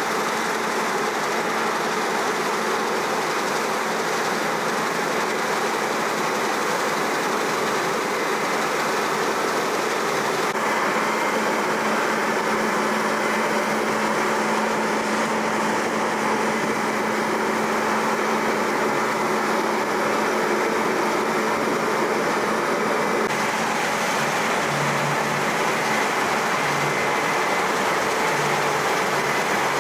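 New Holland CR9.90 combine harvester running under load while harvesting with a 13.6 m Draper header: a steady, dense machine hum with a faint low drone, at an even level.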